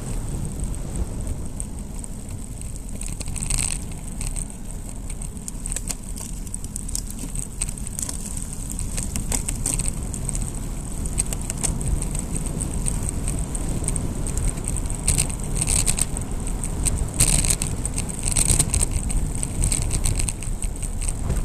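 Wind buffeting a bike-mounted action camera's microphone and low road rumble from a bicycle descending a paved road, with scattered sharp clicks and rattles that come more often in the second half.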